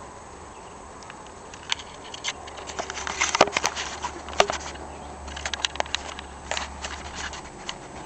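A cat and a St. Bernard puppy play-fighting: irregular light taps and scuffles of paws and claws, busiest in the middle, with two sharper clicks.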